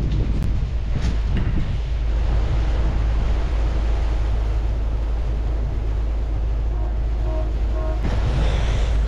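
Strong wind buffeting the microphone: a steady, loud low rumble with a hiss over it, and a couple of light clicks about half a second and a second in.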